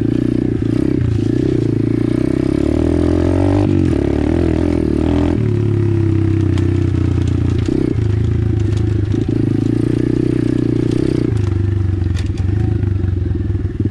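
Apollo RFZ 125cc pit bike's single-cylinder four-stroke engine running under load on a rough trail, its pitch rising and falling with the throttle. Rattling knocks from the bike over rough ground come in near the end.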